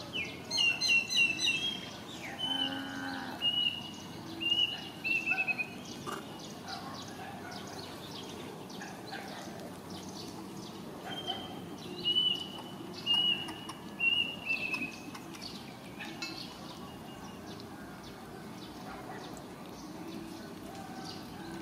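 High-pitched animal calls: a burst of clear calls near the start, then a run of short notes, repeated in much the same pattern about ten seconds later.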